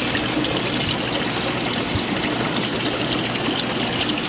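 Steady trickling and bubbling of water from aquarium filtration and aeration running in the store's tanks, with many fine bubble ticks.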